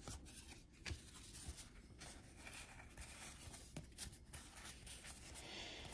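Faint rustle of 1991-92 Fleer basketball cards being slid off a stack and flipped through by hand, with a few soft clicks as cards touch.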